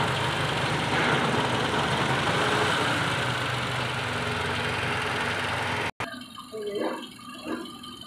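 2014 Toyota Camry engine idling steadily and running normally, with no misfire at this moment. About six seconds in, the sound cuts off abruptly and fainter, scattered sounds follow.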